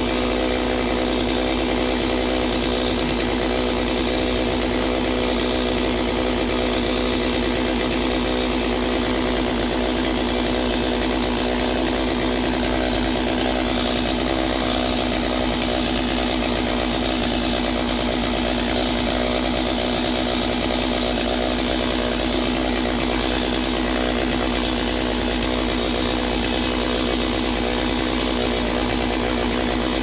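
Small engine running steadily at one even pitch, without revving or cutting.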